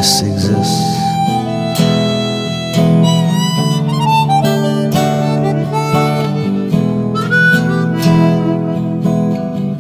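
Music: a harmonica playing a slow melody of held notes over an acoustic guitar strummed about once a second.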